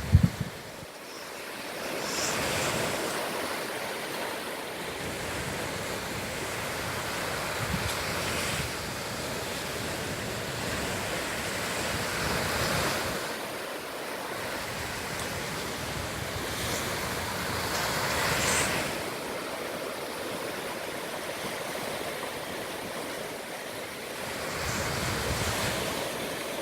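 Ocean surf breaking and washing up on a beach, swelling and ebbing every few seconds.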